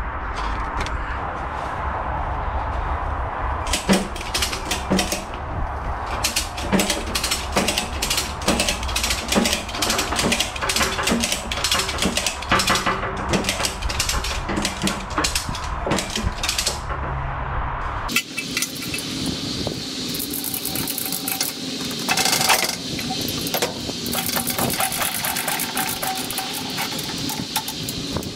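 Metal clanks, knocks and ratchety clicks of heavy milling-machine parts and a pallet truck being handled and shifted. A steady low rumble sits underneath at first and cuts off abruptly about 18 seconds in, after which sharper, lighter clicking carries on.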